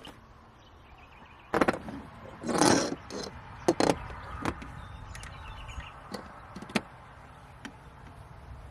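Scattered knocks and clatters, about eight of them, with a longer rasping noise a little after two and a half seconds in.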